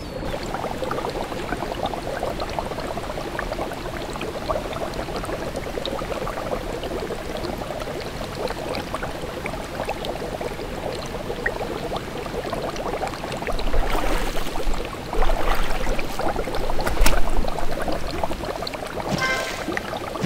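Spa whirlpool jets bubbling and churning the water: a steady, dense bubbling that grows louder and deeper about two-thirds of the way through.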